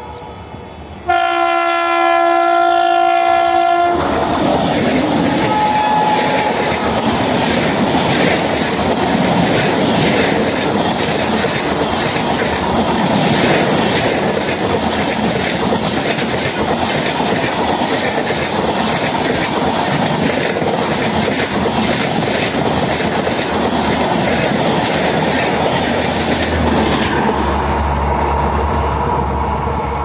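WAP-7 electric locomotive's horn sounds one steady blast of about three seconds. The locomotive and its LHB coaches then pass at about 99 km/h: a loud, dense rush with rapid clickety-clack of the wheels over rail joints for some twenty seconds, thinning near the end as the last coach goes by.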